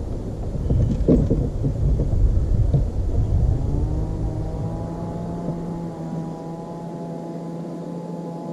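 Wind buffeting the microphone with a low rumble, then about three seconds in a boat motor's hum rises in pitch and settles into a steady tone as the wind noise drops away.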